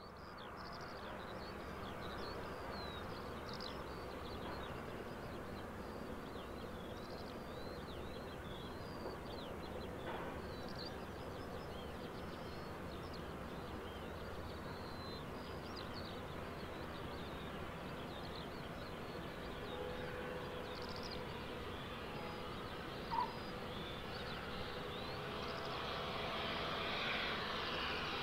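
Twin Garrett TPE331 turboprops of a Short SC7 Skyvan running steadily on approach, landing and rollout, growing louder over the last few seconds as the aircraft rolls closer. Birds chirp over it through the first half.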